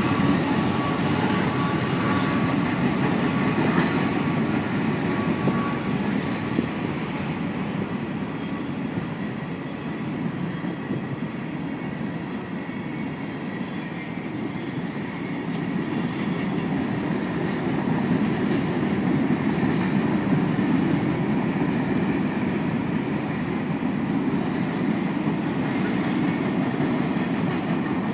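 Norfolk Southern freight train's cars rolling past, a steady rumble of steel wheels on the rails that eases a little about a third of the way through and then builds again.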